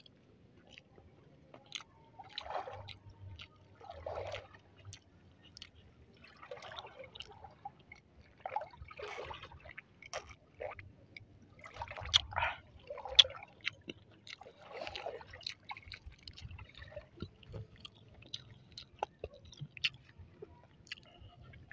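Close-miked mouth sounds of a person drinking an iced drink from a glass mug: a series of separate swallowing gulps a second or two apart, with wet chewing and small clicks in between.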